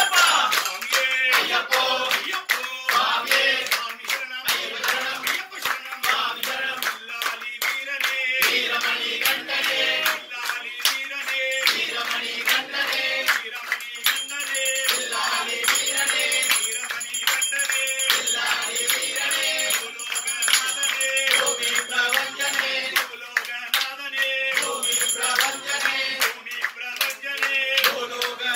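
Devotees singing a devotional Ayyappa bhajan, with hand-clapping keeping a regular beat under the singing and a steady held drone tone.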